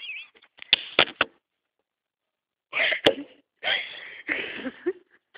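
Muffled, stifled laughter in short breathy bursts, with a few sharp clicks about a second in and a break of dead silence before the bursts start again.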